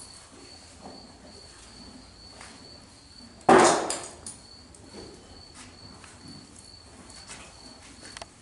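Steady, evenly pulsing high chirping of a cricket, with one loud, sudden, noisy burst about three and a half seconds in that fades within a second.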